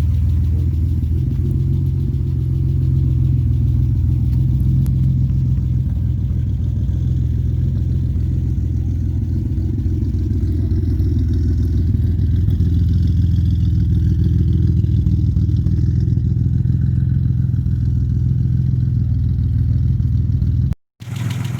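1994 Mitsubishi 3000GT VR-4's twin-turbo V6, freshly built and in its break-in miles, running steadily as a low drone. The sound cuts off for a moment near the end.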